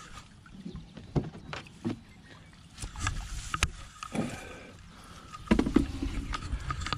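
Scattered knocks and clatter of a whitebait net's frame and mesh being gripped and handled, with a cluster of louder knocks about five and a half seconds in.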